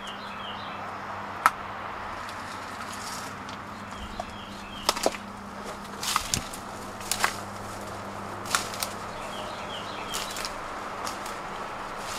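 Footsteps through woodland undergrowth, with a few sharp twig cracks and crunches scattered through the middle, and birds chirping now and then over a steady low hum.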